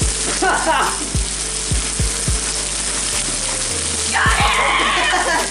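Steady hiss of falling rain, with the thudding beat of background music underneath.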